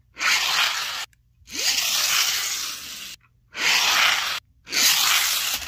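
Four loud breathy gusts of a person's breath, each about a second long and each cut off abruptly.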